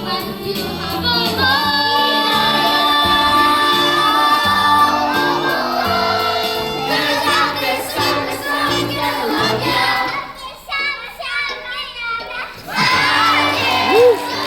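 Children's voices singing with musical accompaniment in a stage musical number. Long held notes in the first half give way to shorter, choppier phrases and shouting voices toward the end.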